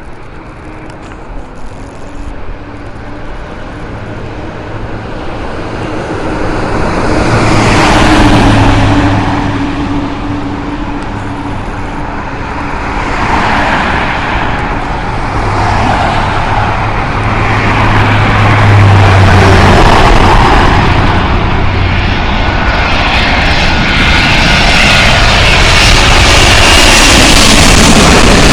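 Boeing 777-200ER jet engines on landing approach, a rushing roar that swells and fades and then builds to its loudest near the end as the airliner comes close. A truck engine hums underneath through the middle.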